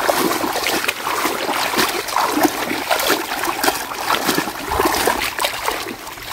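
Hand-held mesh scoop net being pushed and swept through shallow, muddy, weedy water by a wading person, with repeated irregular splashing and sloshing.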